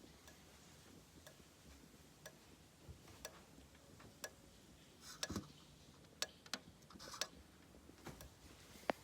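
System Sensor SpectrAlert Advance fire alarm strobe flashing, with a faint tick at each flash about once a second. Some louder, irregular clicks and knocks join in over the second half.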